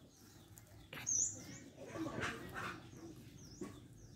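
Faint animal sounds: two short calls, about one second and about two seconds in, over faint high chirping.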